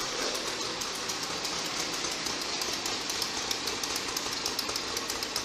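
ATV engine running with a steady, fast rattling clatter.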